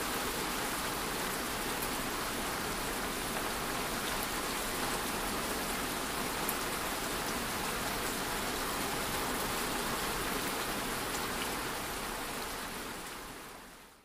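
Steady rain ambience, fading out over the last two seconds.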